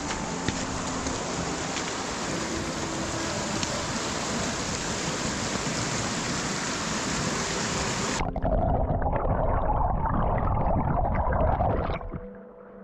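Rushing water of a mountain stream, a steady hiss. About eight seconds in it changes to a duller, deeper rush, which stops suddenly near the end.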